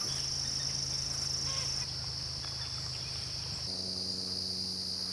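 A steady chorus of crickets trilling. Under it is a low sustained drone that steps up to a higher pitch with added tones about two-thirds of the way through.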